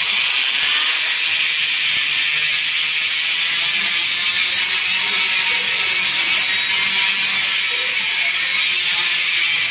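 Handheld die grinder with a yellow abrasive sanding wheel running steadily, sanding the inside of a Suzuki RGR 150's metal crankcase. It makes a continuous high hiss.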